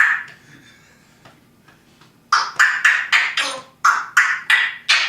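Parrot giving a quick run of about nine short, harsh squawk-like calls, about three a second, beginning some two seconds in, after one sharp sound at the very start.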